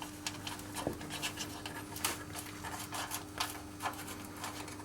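Light metallic clicks and scrapes at irregular intervals as a wrench loosens the 10 mm bolt holding a plastic engine cover, with a faint steady hum underneath.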